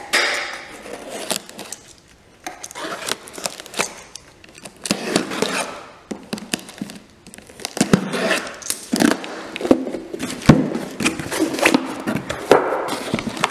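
Cardboard box being opened by hand: packing tape torn and flaps pulled back, with irregular scraping, rustling and sharp clicks of cardboard.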